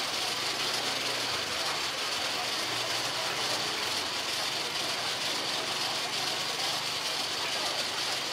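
Steady background hiss with a low engine-like hum underneath, unchanging throughout.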